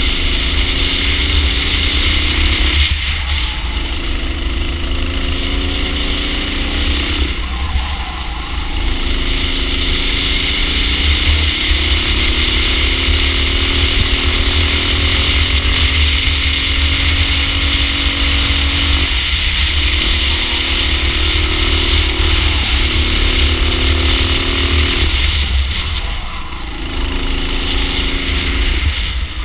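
Racing kart engine heard from onboard at full throttle, its note sweeping up in pitch through each pull and dropping away briefly about five times, most likely as the driver lifts for corners. The longest climb comes in the middle, on the straight. A steady hiss and a low rumble run underneath.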